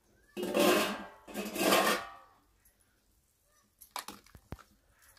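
Steel plate lids scraping and clattering twice as they come off a steel cooking pot, then a few sharp knocks of a steel ladle against the pot while stirring the chicken broth.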